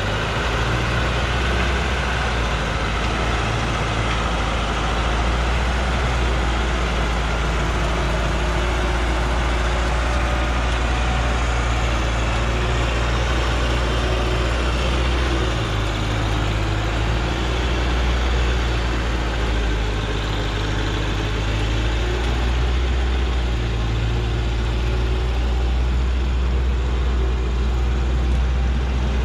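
Diesel engine of a Hoa Mai truck loaded with acacia logs, running steadily at low speed under load as it crawls past, a deep hum that swells a little now and then.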